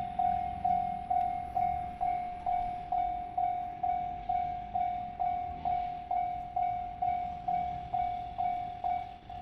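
Japanese railway level-crossing warning bell ringing a single repeated ding, about two strikes a second. It is the signal that a train is approaching the crossing.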